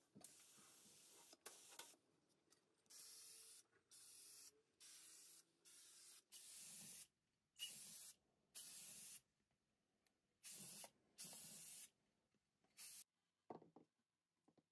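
Spray paint hissing in about a dozen short bursts, each under a second, with brief pauses between them. A few faint clicks come near the end.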